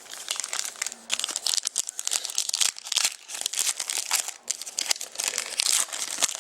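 Trading card pack wrapper being torn open and crinkled by hand, a dense, irregular crackling of wrapper material.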